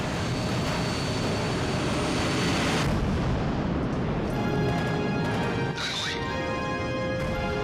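War-film soundtrack. A dense wash of battle noise fills the first three seconds, then gives way to music with held tones, with a short burst about six seconds in.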